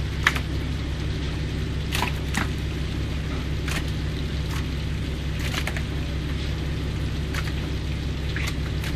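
Fishing boat's engine running with a steady low hum, with scattered wet slaps and knocks as fish are handled and dropped into a plastic fish box; the sharpest knock comes just after the start.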